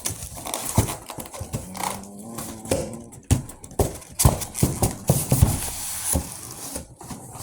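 Irregular hollow knocks and clicks from unpacking a boxed Bluetooth speaker and handling its packaging.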